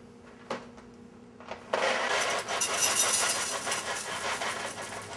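Dry cereal poured from a cardboard box into a bowl: a dense rattling patter of many small pieces, starting about two seconds in and lasting about three seconds. It follows a couple of light knocks.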